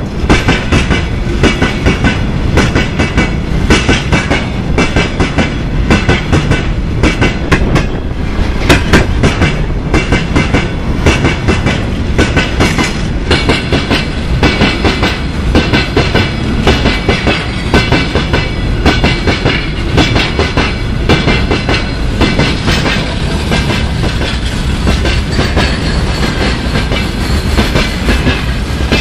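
Freight wagons of a long freight train passing close by: the wheels clatter steadily over the rail joints, with a high metallic ringing over the rumble.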